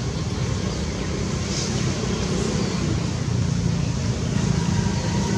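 Steady low rumble and hiss of outdoor background noise.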